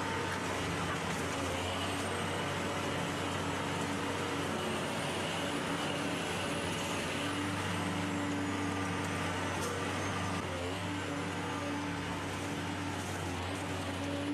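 Car crusher-shredder running steadily with a low mechanical hum as its hydraulic lid presses a car down into the hopper.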